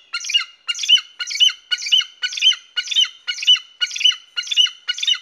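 Eagle calling: a steady series of short, high calls, about two a second.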